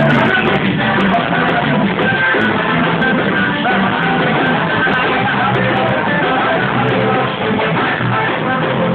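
A forró song playing loudly and continuously, a full band sound with the high end cut off.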